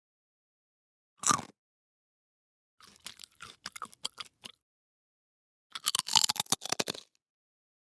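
A person biting into and chewing crunchy food, as separate short sound effects. There is a single crisp bite about a second in, then a run of quick crackly crunches, and near the end a louder, denser burst of crunching.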